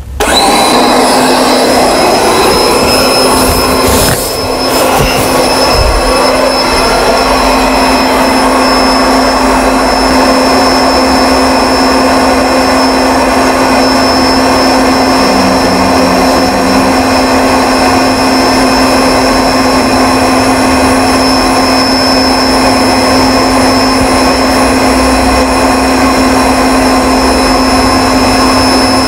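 Built-in electric air pump of an air mattress switched on and running steadily as it inflates the mattress: a whirring motor hum with a high whine that winds up to speed within the first half second, then holds.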